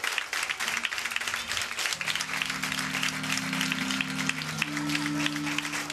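Congregation applauding. About two seconds in, held keyboard chords come in underneath and change near the end.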